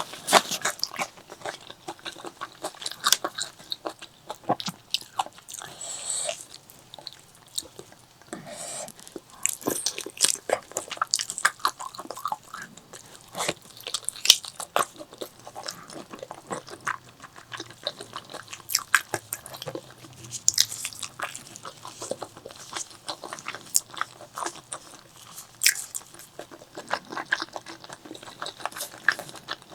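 Close-miked eating: a person biting and chewing food, with crunchy bites and a rapid, irregular string of sharp mouth clicks.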